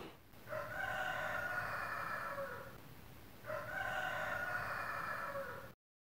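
A rooster crowing twice, each crow lasting about two seconds, with a short pause between them.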